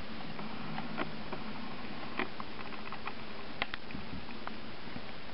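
Steady low hiss with a few scattered faint clicks and taps.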